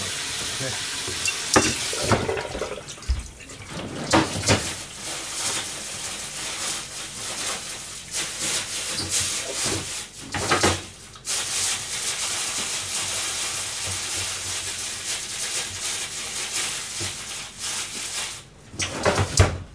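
Food sizzling in a frying pan: a steady hiss broken by several sharp knocks and clatters of utensils against the pan.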